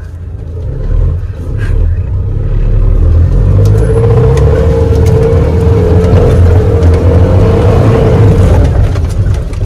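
Off-road vehicle's engine revving hard and held at high revs, a loud rumble with a steady whine that builds over the first three seconds and eases a little near the end.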